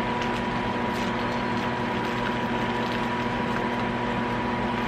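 Steady mechanical hum with a constant high whine, unchanging throughout, with faint light ticks over it.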